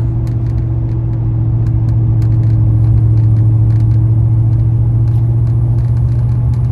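Steady low engine and road drone inside a moving car's cabin, with a faint steady hum above it, swelling slightly midway.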